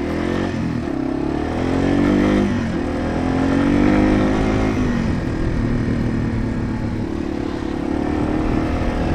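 Yamaha TW200's single-cylinder four-stroke engine revving up as the motorcycle pulls away. Its pitch climbs, drops back, climbs again, then holds steady.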